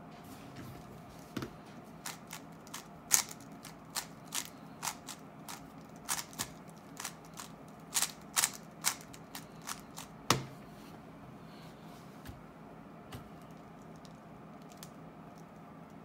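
Plastic 3x3 speed cube being turned fast by hand: irregular clicks and clacks as the layers snap round, a few of them loud, with a heavier knock about ten seconds in, then only a few faint clicks.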